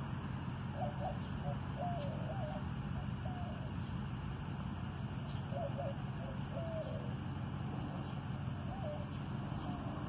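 A bird calling: two runs of short, wavering notes, the first starting about a second in and the second from a little past the middle, over a steady low background hum.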